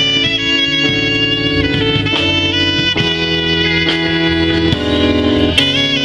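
Instrumental music: a sustained melody line over held chords and a bass line, the notes changing every second or so.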